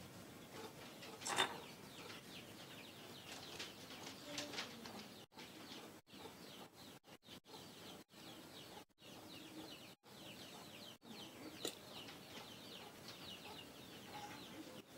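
Faint chirping of small birds, many short falling chirps, with one sharp click about a second and a half in. The sound cuts out briefly several times in the middle.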